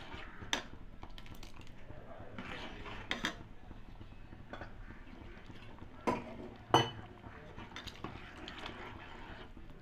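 Metal ladle stirring a thin vegetable stew in a metal pot, scraping and knocking against the pot, with a few sharp clinks, the loudest a little under seven seconds in.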